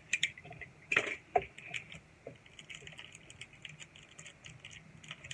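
Light clicks and rustles of Carddass trading cards and their packaging being handled, with a sharper knock about a second in.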